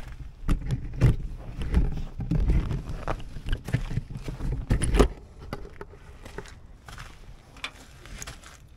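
Handling noise of a snapped shear bolt being held up against a new shear bolt: irregular clicks, knocks and rustling with low thumps, busiest for about the first five seconds, then quieter.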